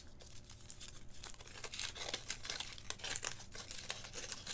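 Wrapper of a Brunberg strawberry cream-filled chocolate crinkling as it is peeled off by hand, a string of small, irregular crackles.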